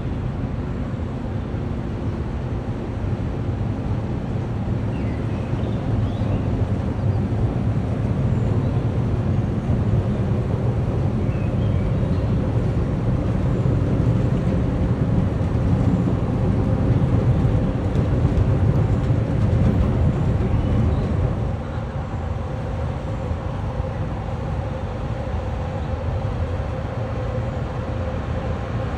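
Low, steady engine drone of a passing cargo ship, with level hum tones, swelling gently through the middle and easing a little about three-quarters of the way through. A few faint, short high chirps sit above it.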